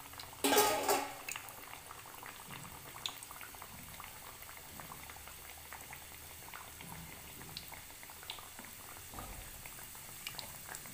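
Green-pea kachoris deep-frying in hot oil in a steel kadai: the oil bubbles steadily with fine crackles. A short, louder pitched sound, like a brief cry, comes about half a second in.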